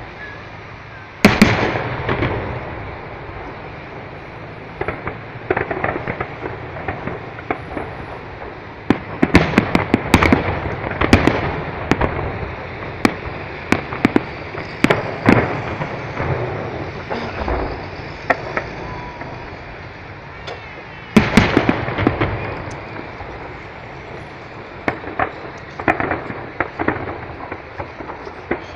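Aerial fireworks display: shells bursting in sharp bangs with crackling in between. A single loud bang comes about a second in, a dense run of bangs fills the middle, and another heavy volley comes about two-thirds of the way through.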